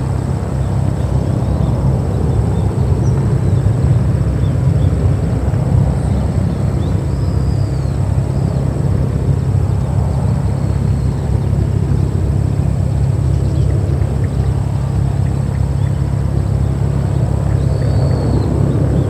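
Steady low drone of an aircraft engine running at the airport, holding an even level throughout.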